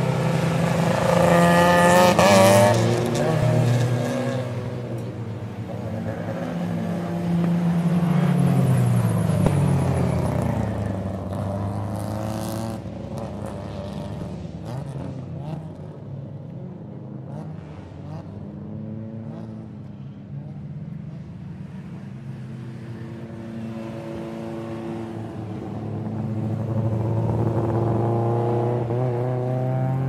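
Race car engines running, the engine note rising and falling in pitch. Loudest about two seconds in, swelling again around nine seconds and near the end.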